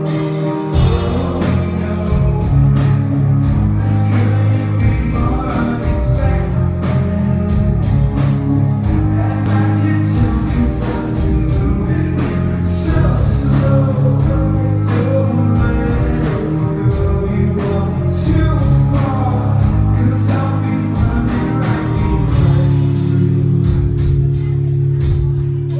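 Rock band playing live and amplified: electric guitars, bass and drums with a sung vocal, loud and steady throughout.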